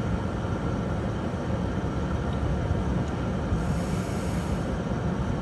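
Steady low rumble of vehicle noise, with a brief rise of high hiss about four seconds in.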